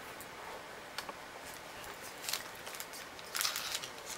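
Quiet room tone with a few light clicks, then a brief rustle of paper play money being handled near the end.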